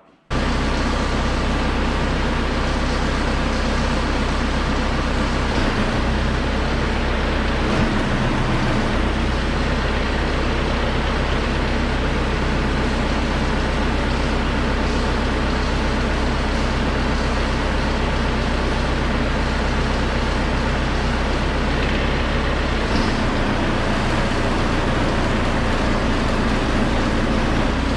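Large engine running steadily, its low hum shifting slightly in pitch a few times, with a loud, even mechanical noise over it.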